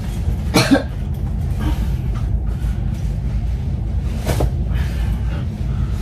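A person coughing twice, once about half a second in and again about four seconds in, over a steady low hum.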